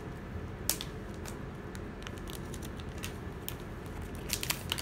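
Light clicks and crinkles of hands handling an iPhone 11 box and its clear plastic shrink-wrap, with a cluster of ticks near the end, over a steady low background hum.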